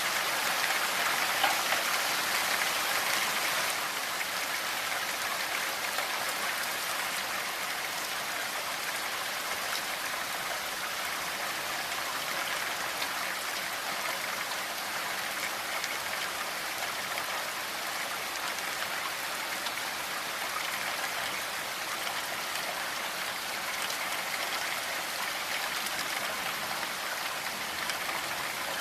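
Steady rainfall: an even hiss of many small drops, a little heavier for the first few seconds and then constant.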